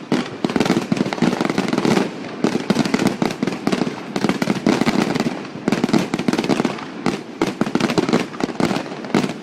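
Fireworks display: a dense, rapid barrage of bursts and crackling, coming in waves with brief lulls between them.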